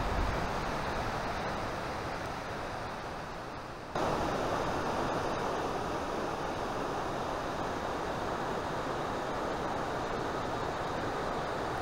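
A fast mountain river running high: a steady rush of whitewater. It eases slightly over the first few seconds, then comes back louder at once about four seconds in.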